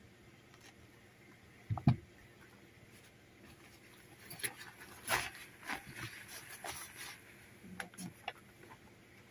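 Handling noise: a single thump about two seconds in, then irregular rustling of paper and cloth with a few light clicks near the end.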